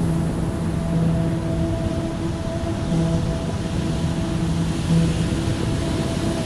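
Music intro of held low notes that pause and return every second or two, over steady wind rumble on the microphone.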